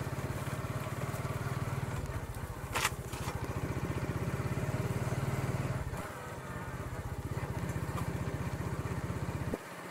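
Motorcycle engine running under way with a steady firing beat. It pulls harder from about two seconds in, eases off about six seconds in, and the low engine note drops away just before the end. One sharp click about three seconds in.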